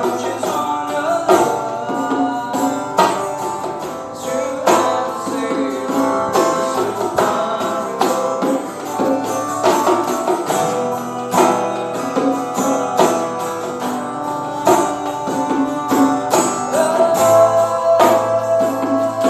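A band playing music: pitched strings over a steady beat of percussion hits.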